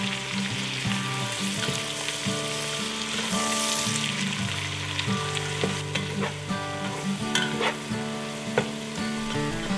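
Diced onions and carrots sizzling as they sauté in melted butter and bacon fat in a pot, stirred and scraped around with a spatula. A few sharp taps of the spatula against the pot come in the second half.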